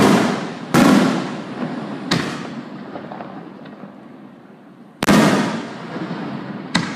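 Aerial firework shells bursting: five sharp booms, at the start, about a second in, about two seconds in, about five seconds in and just before the end. Each trails off in a long rolling echo.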